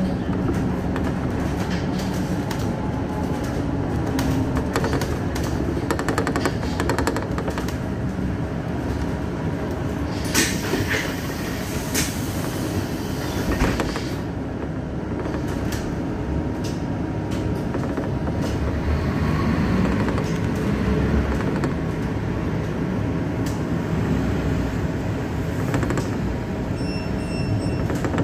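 Cabin noise of a moving city bus: a steady engine and road rumble, with a few sharp clicks and rattles about ten to fourteen seconds in.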